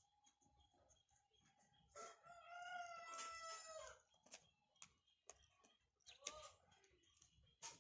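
A rooster crowing once, a faint call about two seconds long that drops in pitch at the end, followed by a shorter call. Scattered faint clicks are heard around it.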